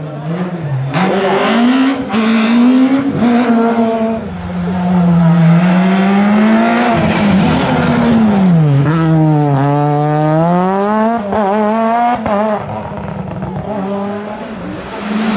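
Rally car engine revving hard on a special stage, its pitch climbing and dropping again and again as the driver shifts gears and lifts off the throttle.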